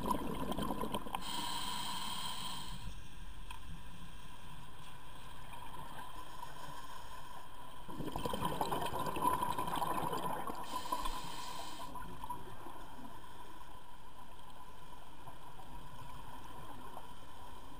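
Underwater sound heard through a camera housing: a steady muffled wash of water with a faint steady whine, and a scuba regulator's exhaled bubbles hissing twice, about a second in and again about ten seconds in.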